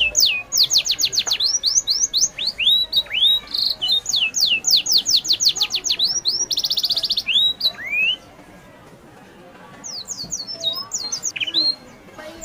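Birds calling from the trees: quick runs of sharp, high whistles that slide steeply down, several a second, with a few rising notes and buzzy calls between. The calls drop out about eight seconds in and start again about two seconds later.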